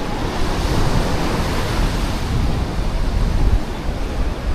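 Sea surf breaking and washing up the beach, a steady rushing noise that swells about a second in, with wind rumbling on the microphone.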